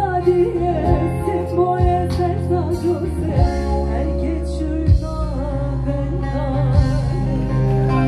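Live band music: a woman sings a melody with a wavering vibrato into a microphone over guitar, bass notes and occasional low drum hits.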